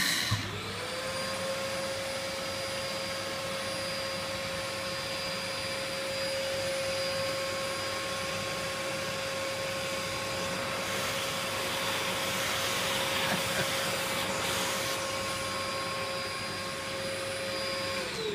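Home-built CNC mill's spindle, a multicopter brushless motor, spinning up to a steady high whine and running at constant speed while the machine engraves. There is a noisier, hissier stretch in the middle, and the whine starts to wind down right at the end.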